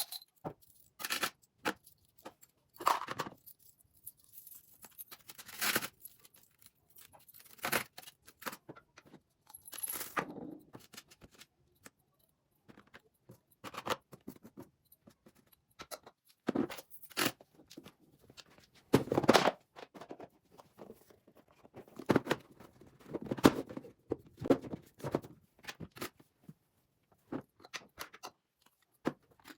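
Hands handling household objects: short clicks, rustles and scrapes coming and going in separate bursts, with the loudest a little past the middle.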